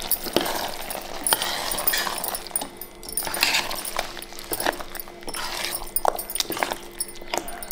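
Metal ladle stirring thick chicken gravy in a pot, scraping and clinking irregularly against the pot's sides, over a steady faint hum.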